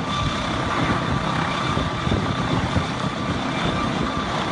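Helicopter running close by: rapid low rotor beating under a steady high turbine whine.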